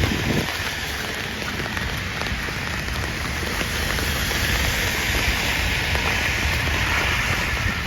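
Steady rain falling on a wet street: an even hiss that swells for a few seconds in the middle.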